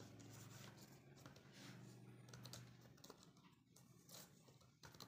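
Faint computer-keyboard typing: a run of soft, irregular key clicks as a word is typed.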